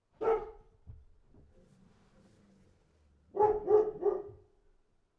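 A Pomeranian barking: one bark at the very start, then a quick run of three barks about three seconds later.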